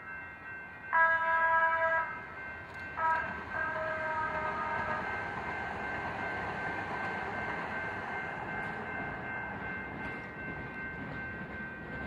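Train horn sounding for a grade crossing: a one-second blast about a second in, then a short blast and a longer one, over the steady ring of the crossing bell. From about three seconds in, the rumble of the train passing through the crossing holds steady.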